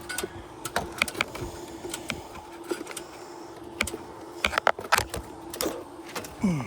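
Irregular sharp clicks and scrapes of handling and movement on an asphalt shingle roof, over a steady hum.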